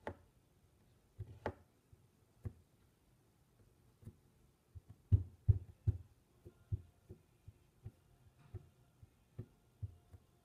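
Irregular soft knocks and taps of a metal blade and fingers against a tabletop as the blade is pressed down through a lump of Play-Doh, with a cluster of louder knocks about five to six seconds in.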